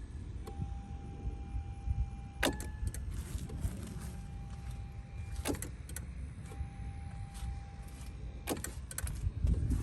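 Infiniti G35, on jumper cables, making the weird noise it gives when starting is tried but it will not start, even with a new starter motor fitted. Sharp clicks come about every three seconds, with a steady tone sounding between them over a low rumble.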